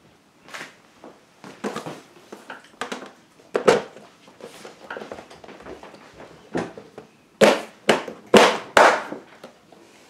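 Refrigerator dispenser control panel being pushed and seated into its recess in the door: a string of sharp clicks and knocks, with the loudest four close together about seven to nine seconds in.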